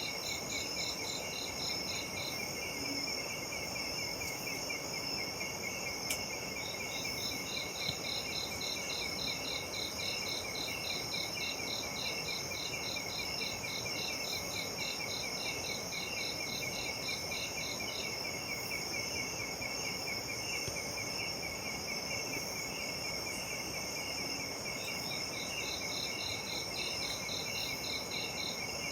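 Night insect chorus of crickets and katydids: several steady, high trills overlapping, with one insect's pulsed call at about four beats a second that stops a little past halfway and starts again near the end.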